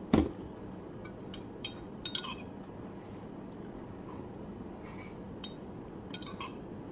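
A ceramic mug set down on the table with a single heavy knock just after the start, then a metal spoon clinking against a ceramic bowl several times as she eats.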